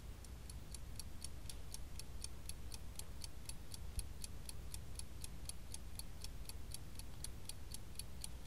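Steady, even ticking, about four ticks a second, over a low hum.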